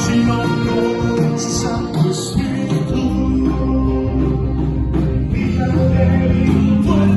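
Live worship band playing a song at rehearsal, with singing over guitar, bass and drums.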